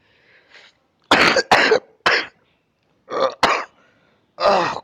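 A man coughing in a fit: about five harsh coughs in quick succession.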